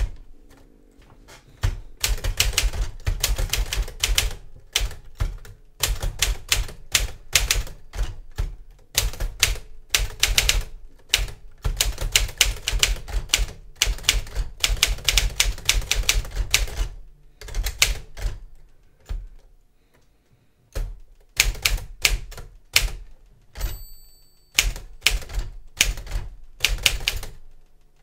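Smith-Corona Silent-Super manual typewriter being typed on: runs of quick keystrokes, the type bars striking the platen, broken by short pauses and a longer pause about two-thirds through. A little later a single high ring of the line-end bell sounds as the carriage nears the right margin.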